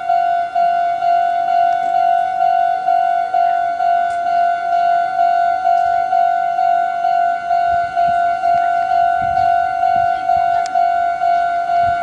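Japanese level-crossing warning alarm ringing steadily, a repeating electronic ding about twice a second. Near the end the low rumble of a Meitetsu 6800 series electric train approaching the crossing rises beneath it.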